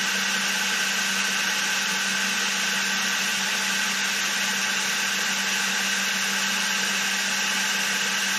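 Milling machine spindle running steadily with an edge finder in it, while the work is fed slowly toward the finder: an even hum with a higher whine over it.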